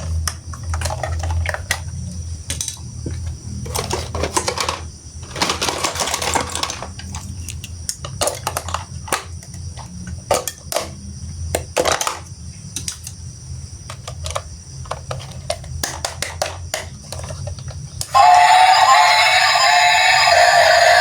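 Irregular small clicks and rattles of plastic toy train parts being handled and fitted together, over a low steady hum. About three seconds before the end, loud music starts suddenly.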